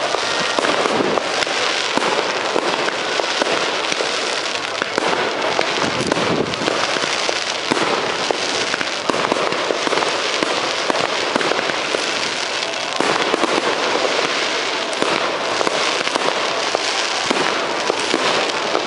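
Fireworks display: a continuous, dense crackling of many rapid sharp pops from bursting shells, recorded through a poor microphone.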